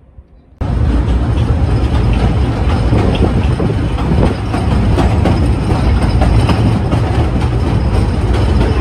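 Kurobe Gorge Railway narrow-gauge torokko train, heard from on board an open-sided car, running slowly with a steady low rumble and many clanks and clicks from the wheels and couplings. The sound cuts in suddenly less than a second in.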